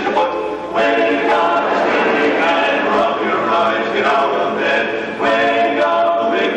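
Male barbershop quartet singing a cappella in four-part close harmony, held chords with two short breaks, about a second in and near five seconds.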